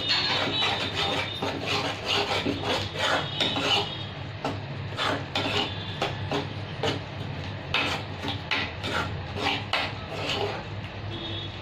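A spoon scraping and stirring a thick, drying coconut masala paste in a kadhai, in many short, irregular strokes, over a faint steady low hum.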